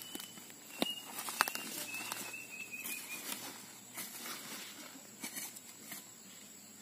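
Hoe blade chopping into and scraping loose soil in irregular strikes, the two sharpest about a second and a second and a half in.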